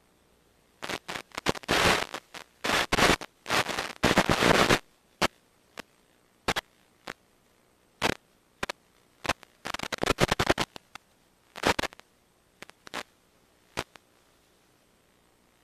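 Irregular bursts of crackling static and sharp clicks, clustered in the first few seconds and again around the middle, then single clicks, with dead silence in between. This is electrical interference on the recording's audio, not any sound from the beach or the drone's motors.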